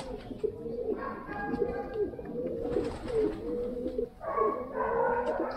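Pigeons cooing, with many low calls repeating and overlapping.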